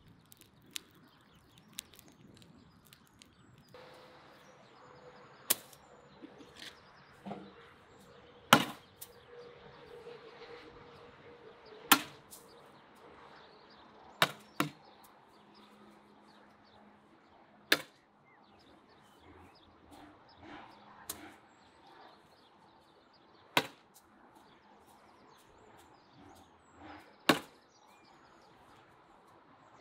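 Bean bags landing on a wooden cornhole board: sharp knocks one at a time, roughly every three seconds.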